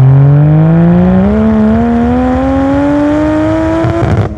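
Toyota Supra MK2's swapped-in 1JZ turbocharged straight-six engine accelerating hard, its pitch climbing steadily. Near the end the sound breaks off sharply and comes back at a lower pitch.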